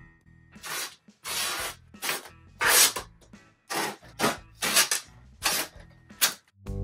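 Old fabric covering being pulled off a wooden rocking chair: a quick, irregular run of about a dozen short rasping rips and rustles of cloth. Guitar music comes in near the end.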